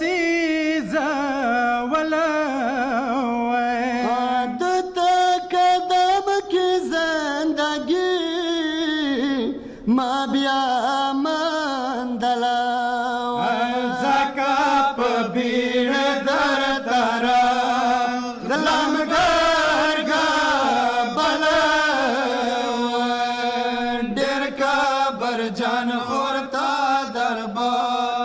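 A group of men chanting a Pashto nauha, a Shia lament, in unison into a microphone, their voices held on long, wavering notes.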